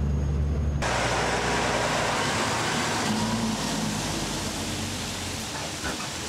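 Loaded log truck and trailer rolling past at road speed: diesel engine and heavy tyre noise on the seal, easing off slowly toward the end. For about the first second, before the truck noise takes over, a steady low diesel drone is heard as from inside a moving vehicle.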